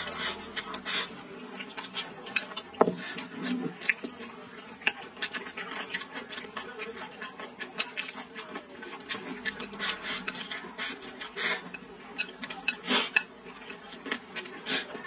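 Wooden chopsticks clicking and scraping against a glazed ceramic bowl of rice, with close-up eating and chewing sounds: many small irregular clicks throughout, over a faint steady hum.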